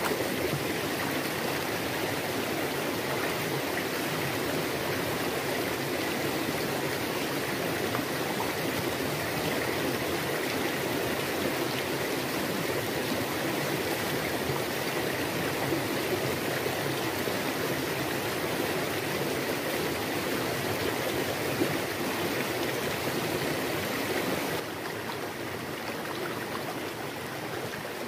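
Shallow, clear stream running over rocks: a steady rushing and trickling that drops to a lower level near the end.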